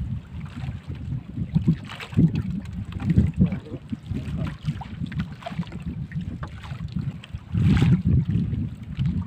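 Water sloshing against a small outrigger boat's hull, with wind buffeting the microphone, while a wet fishing net is hauled aboard by hand. A louder rush of water and wind comes about three-quarters of the way through.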